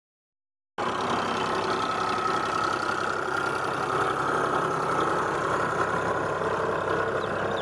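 Eicher tractor's diesel engine running steadily under load while driving a rear-mounted rotavator through the soil, with a faint steady whine over the engine. The sound starts abruptly about a second in.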